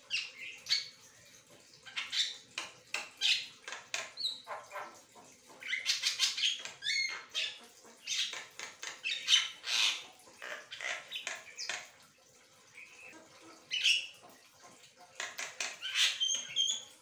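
Javan myna chattering song: runs of rapid, harsh, varied notes with a few short whistles among them, broken by a pause about twelve seconds in.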